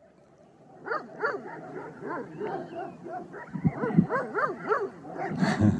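Several shepherd dogs barking and yelping, a rapid run of short rising-and-falling calls that overlap one another, starting about a second in. A few low thumps are heard, and a louder noisy burst comes near the end.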